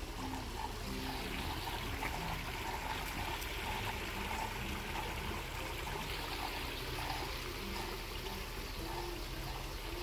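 Steady trickle and splash of water in a koi pond, running evenly throughout.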